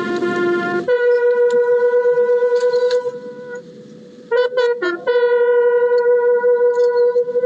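Ceremonial fanfare trumpets sounding long held notes. The pitch steps up about a second in, and a quick run of short notes breaks in about halfway through before the next long note.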